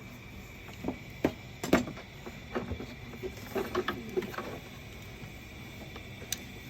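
Scattered clicks and knocks of paper-shredder parts being handled and fitted by hand during reassembly. The loudest knock comes nearly two seconds in, with a cluster of lighter clicks after it. A faint steady high hum runs underneath.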